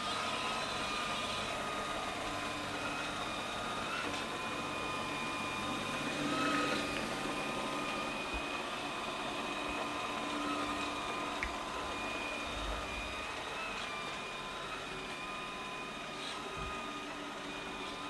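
LG Hom-Bot robot vacuum running: a steady whir from its suction motor and brushes, with several constant high whining tones and a few light ticks.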